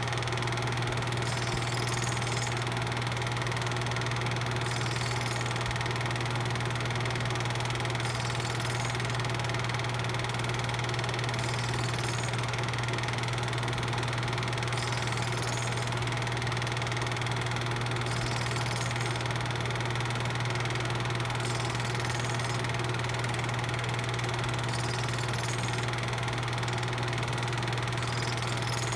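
Steady motor hum with hiss and no change, typical of an 8mm film projector running while its silent film is transferred.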